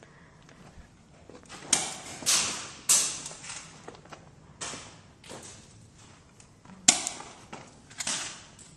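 Airsoft pistols firing about seven irregular shots, each a sharp pop with a short echo in the room.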